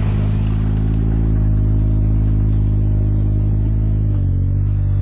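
Engine of a construction machine running steadily at close range, its note dropping slightly about four seconds in.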